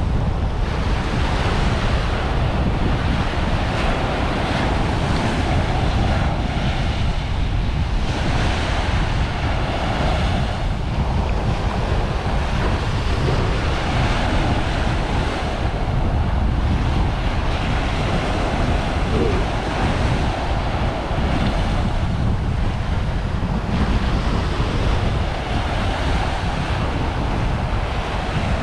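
Small ocean waves breaking and washing up a sandy beach in a steady surf, with wind buffeting the microphone.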